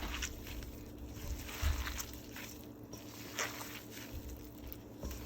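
Hands squeezing and kneading raw ground beef to work in the seasoning: soft, irregular wet squishing with occasional dull pats.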